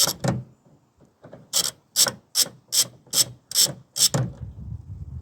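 Hand socket ratchet being worked back and forth to undo a bolt. There are about seven quick, even ratcheting strokes a little over two per second, after a short pause near the start.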